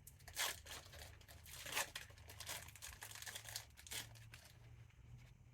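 A Pokémon TCG Fusion Strike booster pack's foil wrapper being torn open and crinkled by hand, with two louder rips about half a second and nearly two seconds in, then lighter crinkling.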